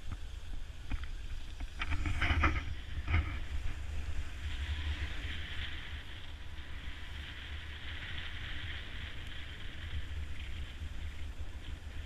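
Wind buffeting the camera microphone as a low rumble, with the hiss of skis sliding over packed snow that grows louder about four seconds in. There are a few short knocks or scrapes about two to three seconds in.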